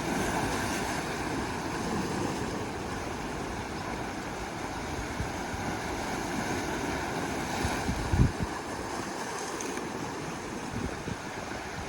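Sea waves washing and surging on the shore in a steady wash of surf, with wind on the microphone. A brief low thump stands out about eight seconds in.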